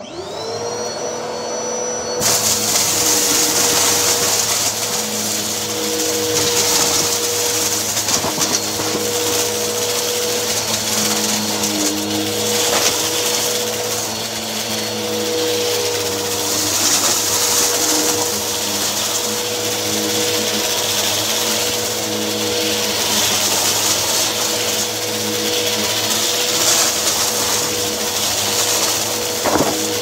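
Bissell CleanView upright vacuum cleaner switched on, its motor whine rising as it spins up, then getting louder about two seconds in. It then runs steadily while it is pushed back and forth, sucking up lint and small bits of litter from the carpet.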